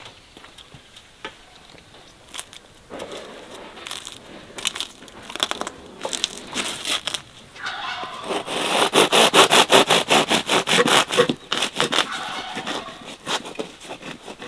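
Crisp crust of a potato loaf crackling and crunching as a knife cuts through it. A few light crackles come at first, then a dense run of rapid crackling from about eight seconds in, fading near the end.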